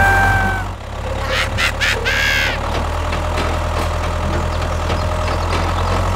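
Steady low engine rumble of a mini toy tractor, like a tractor idling, after music cuts off within the first second. A few short high squeaks come about two seconds in.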